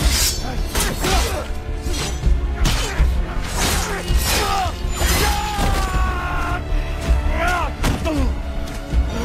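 Action-film fight sound mix: dramatic score music with a low rumble under a rapid series of hits, thuds and slashing swipes, with short pitched cries and one held cry in the middle.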